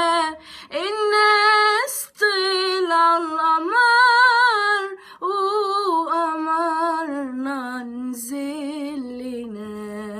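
A woman singing unaccompanied, with no added effects on the voice: an ornamented, wavering melisma that steps down in pitch to a long low held note near the end.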